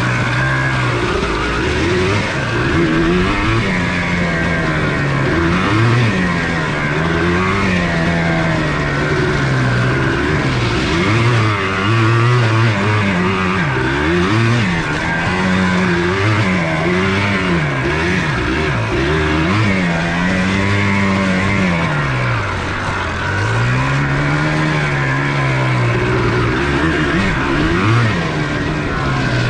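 Single-cylinder two-stroke engine of a 1994 Yamaha Blaster 200 quad being ridden, revving up and falling back again and again. Its pitch climbs and drops every couple of seconds.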